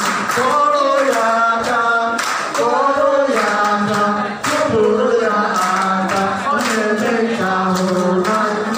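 A woman and a man singing a song together into handheld microphones, amplified through a PA, with held and gliding notes. Sharp hand claps keep time along with the singing.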